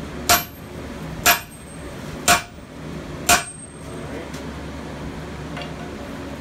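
A striker's sledgehammer hitting hot steel on an anvil, forging a hammer head: four sharp ringing blows about a second apart, stopping after the fourth.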